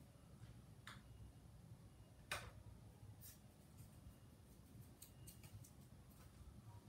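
Near silence: room tone with a few faint clicks, the sharpest about two seconds in.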